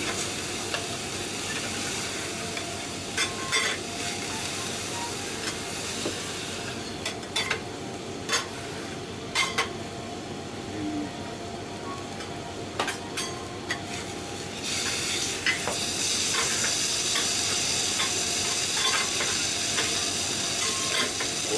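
Thick beef tenderloin steak and sliced onions sizzling on a steel teppanyaki griddle, with scattered clinks and scrapes of a metal spatula and fork on the hot plate. The sizzle grows louder about two-thirds of the way through.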